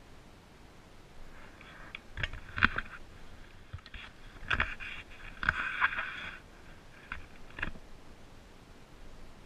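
Handling noise on a handheld camera: scraping and rubbing against the microphone, with about six sharp knocks in two clusters, a couple of seconds in and again around the middle.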